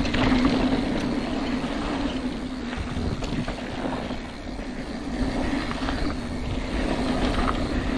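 Mountain bike descending a dirt trail at speed, tyres rolling and rattling over the dirt with wind rushing over the camera microphone. A steady buzz runs underneath, with scattered small knocks from the bike over bumps.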